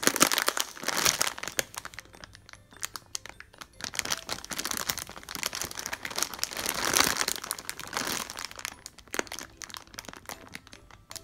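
Clear plastic packaging bag crinkling in irregular bursts as hands squeeze and turn a large foam squishy toy inside it. The crinkling is densest about a second in and again around two-thirds of the way through.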